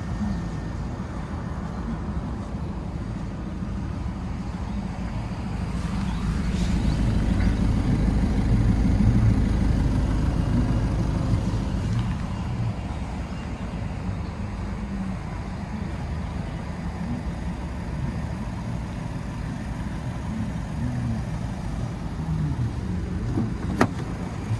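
Volkswagen Golf GTD's 2.0 TDI diesel engine idling steadily, a low rumble that grows louder for a few seconds about a third of the way in. A door latch clicks open just before the end.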